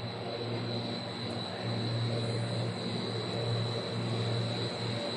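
PVC foam board extrusion line running: steady machine noise with a strong low hum and a thin, steady high whine over it.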